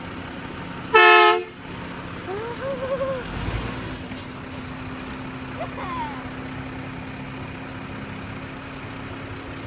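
A garbage truck's horn sounds once, loud and short, about a second in. The truck's engine runs steadily underneath, with a brief high hiss about four seconds in.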